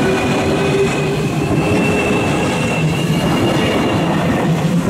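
305 series electric commuter train rolling slowly past, with steady running noise and a thin high whine that rises slightly in pitch.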